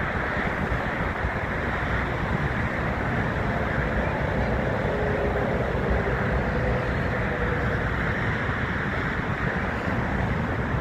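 Steady rumble and hiss of distant jet aircraft and airport ground noise, with wind buffeting the microphone. A faint steady whine comes in about four seconds in and fades out a few seconds later.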